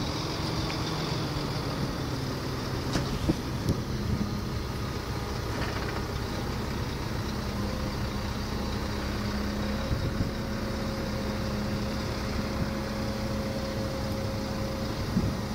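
Heavy diesel engines of a mobile crane and truck running steadily, with a few light clicks near the start and a faint steady hum joining about halfway through.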